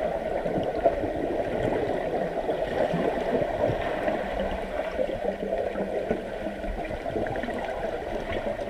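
Pool water churning and gurgling as players swim and scramble, a steady dense rush of water sound.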